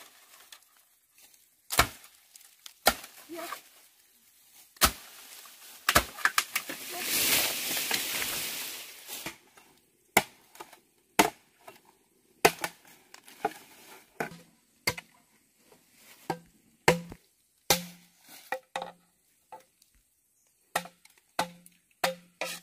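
Kitchen knife chopping on a wooden cutting board in single strokes, irregular and roughly one a second. A rushing, hissing noise lasts about two seconds around a third of the way in.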